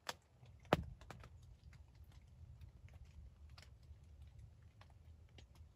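Scattered small clicks and taps close to the microphone, with two sharper ones within the first second, over a low steady rumble.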